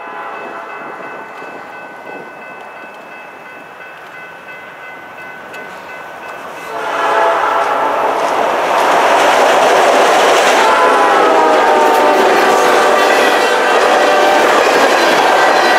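CN diesel freight locomotives sounding their air horn while approaching and passing. The horn chord is faint at first, turns loud about seven seconds in, and drops in pitch as the locomotives go by. The rumble and clatter of freight car wheels on the rails follow.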